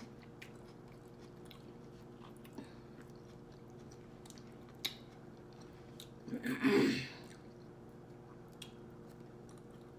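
Faint close-up chewing with a few small mouth clicks while eating. About six and a half seconds in there is one brief, louder voiced mouth sound.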